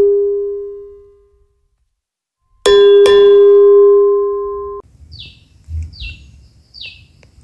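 Logo-intro sound effect: a bell-like ding that rings out and fades over about a second and a half. After a short silence a second ding, struck twice, rings steady and cuts off abruptly. In the last couple of seconds a bird gives three or four short, falling chirps.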